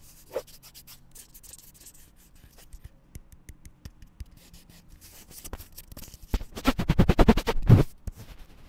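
Fingers and fingernails scratching and rubbing over the body of a Hollyland Lark Max wireless microphone transmitter, heard through that microphone as handling noise. Light ticks and scrapes give way near the end to a louder run of rapid rubbing strokes. The capsule sits under a protective cover, so the rubbing is picked up without overloading.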